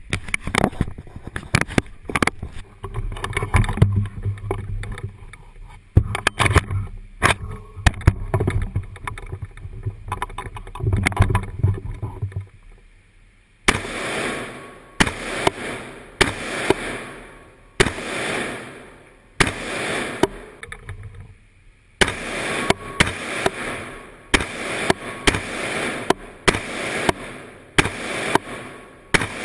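Gunshots at a shooting range, each shot followed by a trailing echo. They come irregularly over a low rumble at first, then at a steady pace of about one every second and a half, and near the end faster, about two a second.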